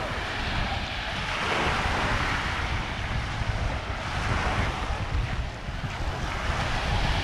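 Small Gulf of Mexico waves breaking and washing up the beach, swelling and fading every couple of seconds, with wind rumbling on the microphone.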